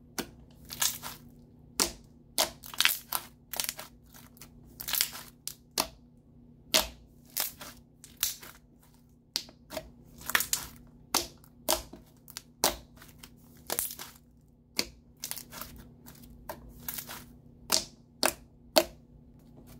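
Thick, glossy clear slime with foam beads being pressed and kneaded by hand, giving irregular sharp clicks and crunchy pops, roughly two a second.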